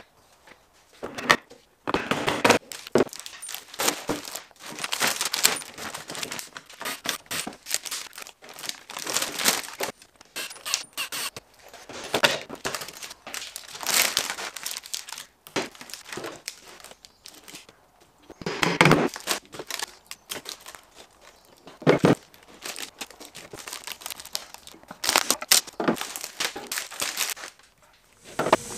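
Plastic sheeting being peeled off and crumpled as a cured resin-and-elm board is freed from its mould: irregular crinkling, tearing rustles, with a few sharp knocks.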